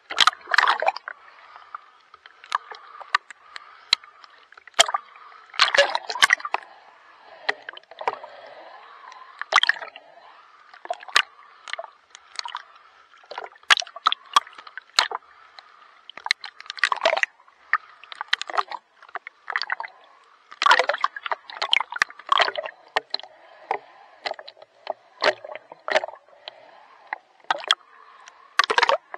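Water splashing and sloshing in irregular strokes, with gurgling, from a person swimming.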